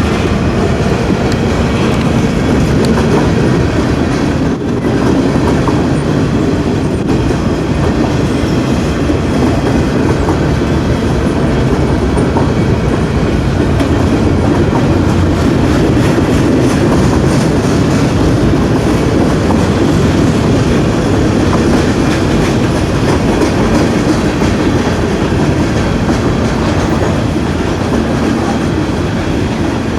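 Freight train rolling steadily past, its steel wheels clacking over the rail joints with a continuous loud rumble of the cars.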